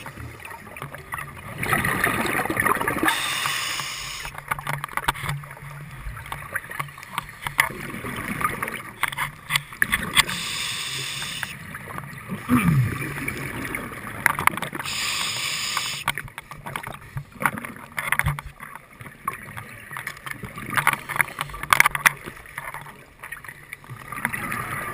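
Scuba regulator breathing heard underwater: bursts of exhaled bubbles rushing and gurgling every few seconds, with scattered clicks and knocks against the camera housing.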